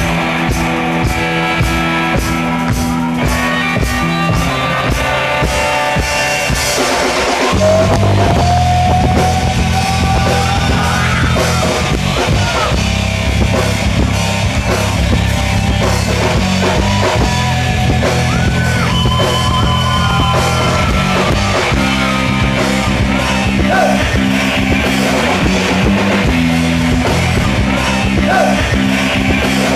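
Live rock band playing: electric guitars, bass and drum kit, the band turning louder and heavier about seven seconds in.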